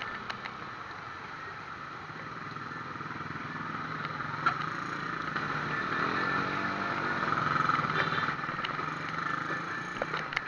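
Road noise of a bicycle ride picked up by a cheap action camera's built-in microphone on the handlebars: a steady rush of wind and tyres. Motor-vehicle engine sound grows louder through the middle, and there is a single sharp knock about four and a half seconds in.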